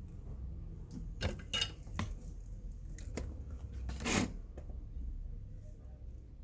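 Metal tools or parts clinking and knocking on a workbench: a handful of sharp light metallic strikes, the loudest just after a second in, at about a second and a half, and just after four seconds.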